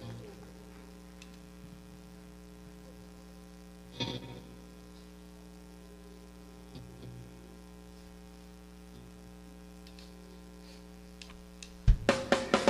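Steady electrical mains hum in a gap between songs, with one brief noise about four seconds in. Near the end, music with drums starts loudly.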